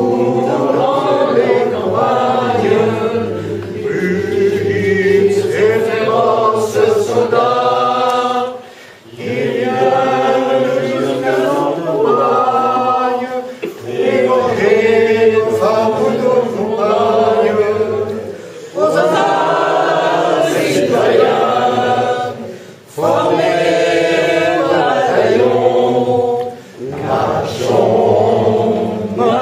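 A choir singing unaccompanied chant in long phrases, each separated by a brief pause.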